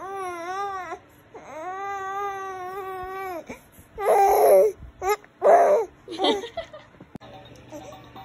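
Young baby crying: two long wavering wails, then louder, harsher cries about four and five and a half seconds in, fading to quieter whimpers.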